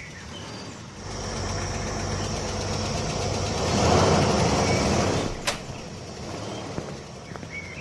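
A motor vehicle's engine passing by, growing louder to a peak about four seconds in and then fading away. A single sharp click comes just after it fades.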